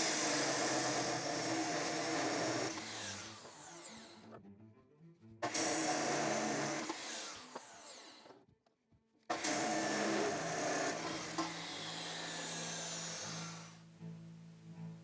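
A power tool running in three long bursts, each cut off abruptly, over quiet background music.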